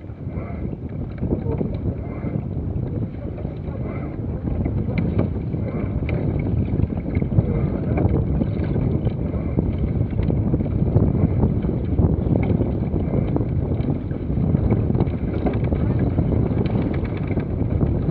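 Wind buffeting the microphone and water rushing past the hull of a J/111 racing sailboat under sail, a steady low rumble that grows a little louder over the first few seconds.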